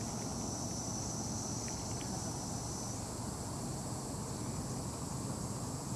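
Steady high-pitched insect chorus with a thin, even whine that stops about halfway, over a low steady rumble.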